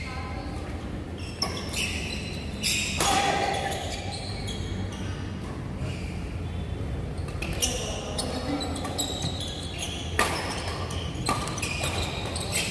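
Badminton doubles rally: sharp cracks of rackets striking the shuttlecock at an irregular pace, mixed with short squeaks of court shoes on the vinyl court mat, echoing in a large hall.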